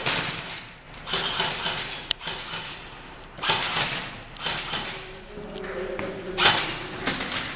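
Airsoft rifles firing several short full-auto bursts, a fast mechanical rattle of shots, about six bursts with brief gaps between them.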